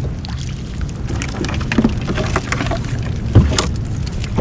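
Small fishing boat's engine running steadily, with scattered knocks and drips as a crab gillnet is hauled aboard; the loudest knock comes about three and a half seconds in.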